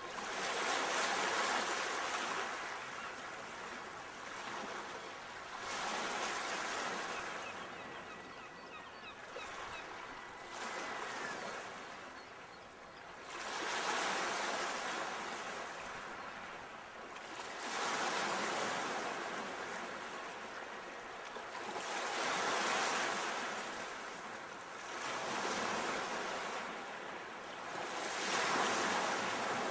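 Ocean waves surging and washing in on the shore, with no music. Each wave swells up and then fades, about every four seconds.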